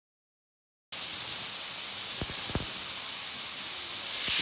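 Steady hiss of compressed air blowing from a CNC router's coolant nozzles onto the bit as it engraves clear acrylic, starting suddenly about a second in. A few faint ticks sound through it.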